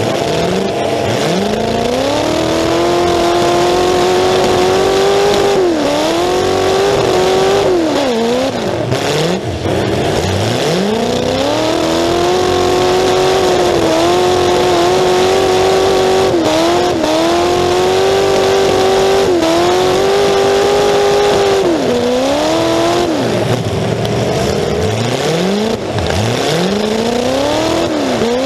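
Full-size demolition derby car's engine, exhaust stacks open through the hood, revving hard: it climbs in pitch, holds high for several seconds, then drops off, about five times over.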